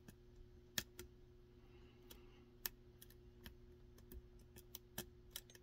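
Faint, scattered clicks of a lock pick and tension wrench working the pin stack of an old Yale pin-tumbler cylinder, growing more frequent near the end as the pins are set.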